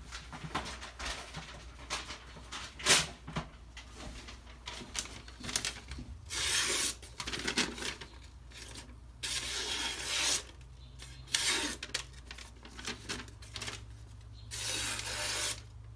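A Microtech Socom Elite folding knife with a CTS-204P steel blade slicing through a sheet of paper in an edge test, with paper rustling and handling clicks; several cuts, the longest about a second each, fall in the second half. The edge is slightly dulled after stropping, which the sharpener thinks may come from taking the apex off by going over angle.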